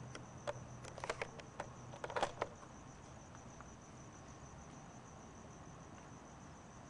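Crickets chirping in a steady, evenly pulsing high trill, with a quick cluster of sharp clicks and knocks in the first couple of seconds.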